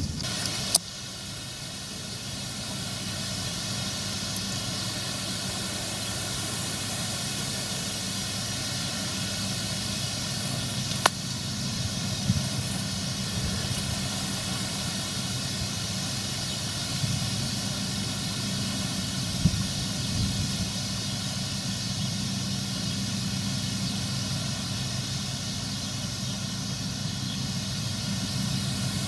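New Holland combine harvester running steadily while cutting grain, its engine and threshing machinery giving a steady drone with a high whine, growing louder over the first few seconds as it comes closer. A single sharp click about eleven seconds in.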